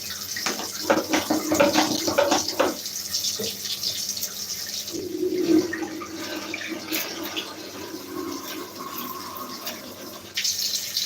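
Tap water running and splashing into a Dyson vacuum's plastic bin, with knocks of the bin being handled in the first few seconds. The water gets louder again near the end.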